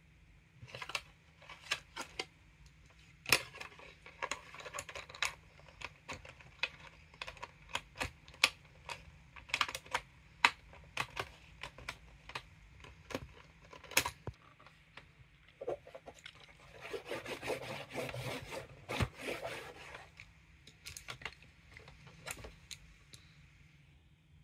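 Plastic pen of a toddler's magnetic drawing board tapping and scribbling on the screen: irregular sharp clicks, with a longer stretch of scratching about two-thirds of the way through.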